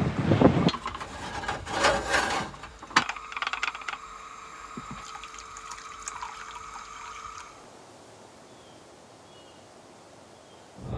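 Water splashing and sloshing as someone thrashes in shallow water for the first three seconds. A sharp click follows, then a quieter steady hum with faint held tones, which drops to low room tone about three-quarters of the way through.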